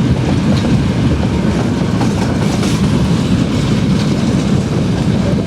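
Loaded freight train of coal wagons rolling past close by: a steady, loud noise of wheels running on the rails.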